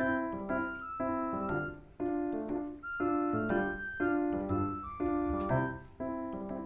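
Background music: keyboard chords struck about once a second, each fading before the next.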